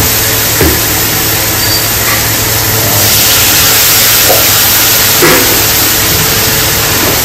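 Onion, tomato and chilli masala frying in hot oil in a metal kadhai, sizzling with a steady hiss.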